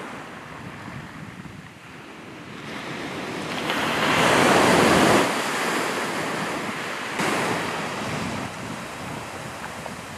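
Surf breaking on a shore: the wash swells to its loudest about four to five seconds in, then eases back, with a smaller surge a little later. Wind buffets the microphone throughout.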